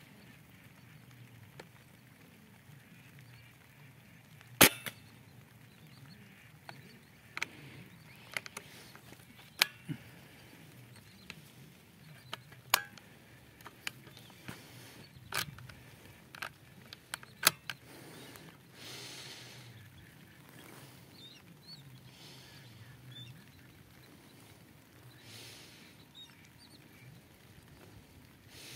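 Raindrops tapping irregularly on the phone and rifle scope: a dozen or so sharp taps, the loudest about four and a half seconds in, over a faint steady low hum.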